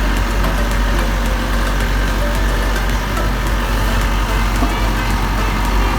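Diesel engine of a Volvo EC55D mini excavator running steadily.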